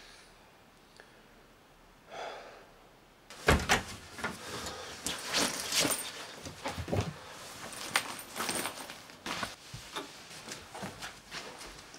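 Rummaging: after a quiet start, a busy string of clicks, knocks and rustles from about three and a half seconds in, as things are handled at a wooden cupboard and grabbed off a shelf.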